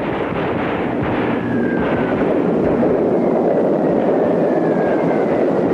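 Battle noise laid under the pictures: a dense, continuous rumble of war sound with no separate shots standing out, and faint high whistles that slowly fall in pitch, twice.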